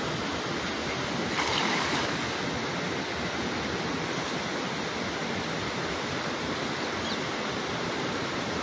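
Steady rush of wind and river water, with a short splash about a second and a half in as a thrown cast net lands on the river surface.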